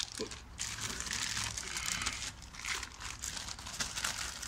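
Clear plastic bag crinkling and rustling as a new turbocharger is handled inside it, with scattered light clicks.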